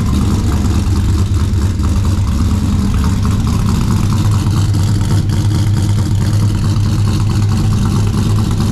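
Holden VR Clubsport V8 idling steadily just after a cold start, heard at the twin tips of its new custom exhaust.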